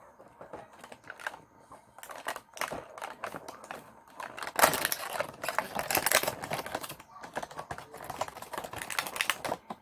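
Packaging crackling and rustling in a flurry of quick clicks as a mystery advent item is unwrapped by hand. It is loudest in the middle.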